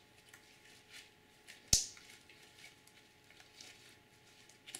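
Fluffy slime being kneaded and stretched by hand, with faint soft squishing, and one sharp click a little under two seconds in.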